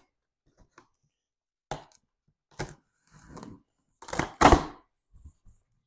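Box cutter slicing packing tape on a cardboard box, heard as a few short scraping, ripping bursts of blade, tape and cardboard. The loudest and longest rip comes about four seconds in.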